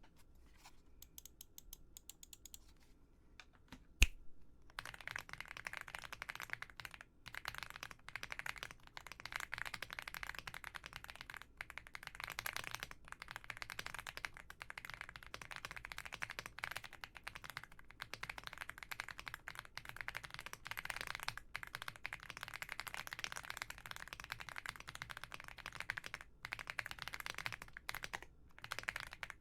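Fast continuous typing on an AULA F75 75% mechanical keyboard with pre-lubed Reaper switches, many key presses with short pauses. A single sharp click comes about four seconds in, just before the typing starts.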